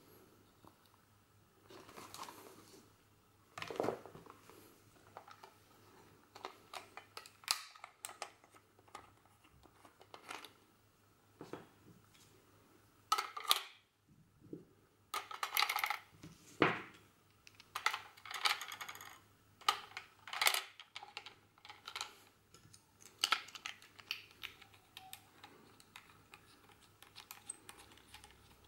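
Hands handling a Braun Nizo S30 Super 8 camera, its leather case and small parts: irregular clicks, taps, light knocks and rustling, with a busier stretch of clicking and clattering in the middle.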